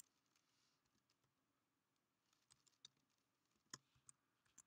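Faint computer keyboard typing: a handful of scattered keystrokes, starting about two seconds in, against near silence.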